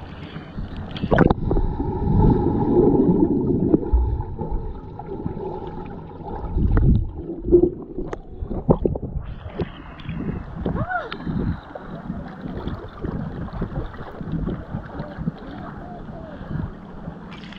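A cannonball jump into a swimming pool: a big splash about a second in, then water sloshing and gurgling around a camera riding at the water's surface.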